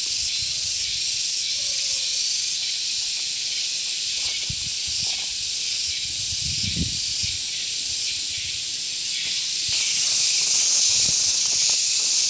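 Steady high-pitched hiss of outdoor ambience, swelling a little near the end, with a few faint low thumps.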